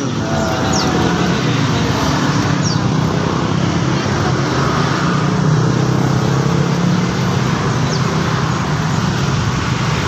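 Steady low rumble of motor traffic, with a few faint, short bird chirps above it.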